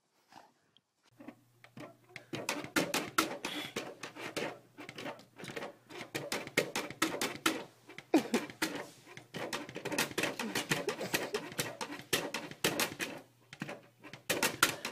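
Rapid, irregular tapping and rattling on a glass door and its plastic cat flap, from a cat on the other side pawing at them.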